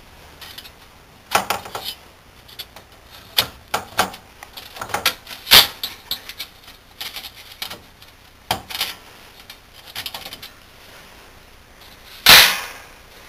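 Irregular metallic clinks and clatters as a perforated sheet-steel shield cage and circuit board are handled on a wooden table. One loud knock with a short ring comes near the end.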